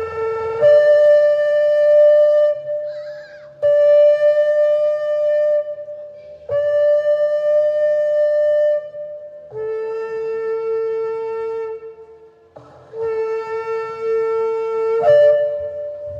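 A shofar (ram's horn) blown in a series of long, held blasts, each lasting two to three seconds, switching between a lower and a higher note.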